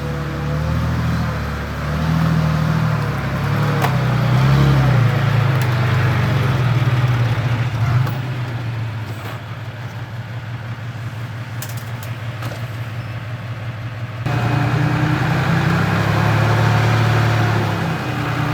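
Heavy machinery's diesel engine running and revving up and down under load, with a sharp knock about eight seconds in. The sound changes abruptly about fourteen seconds in to another run of engine noise.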